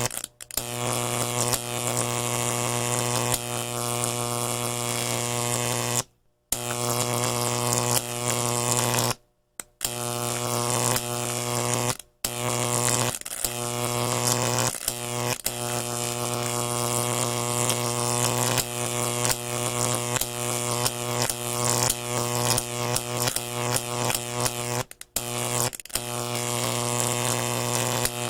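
Electric arcing sound effects: a steady electrical buzzing hum with dense crackling sparks and zaps over it, played as several takes broken by brief silences about four times.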